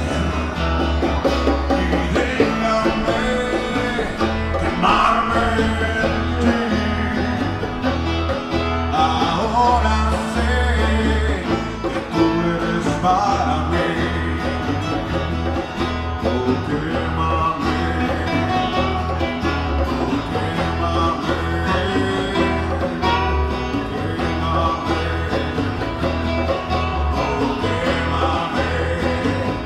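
A live acoustic rock band playing an instrumental passage: strummed acoustic guitars over electric bass and drums, with a steady pulsing beat.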